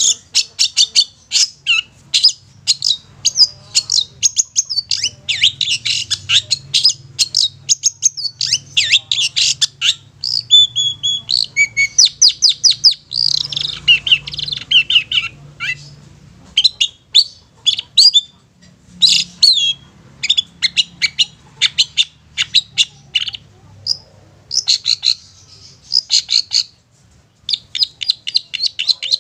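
Long-tailed shrike (cendet) singing: fast runs of short, sharp, high chattering notes, broken by brief pauses.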